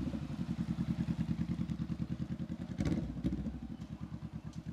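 Motorcycle engine running at low revs as the bike rolls slowly by, its exhaust making a rapid, even, low pulsing beat. A couple of brief knocks come about three seconds in.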